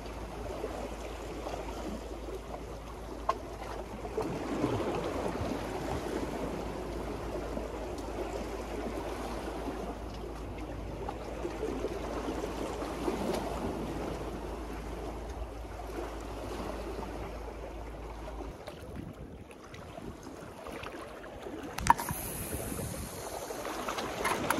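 Sea waves washing and lapping against a seawall embankment, a steady rush that swells and eases every few seconds, with wind. A low hum underneath stops about three-quarters of the way through, and a single sharp click comes near the end.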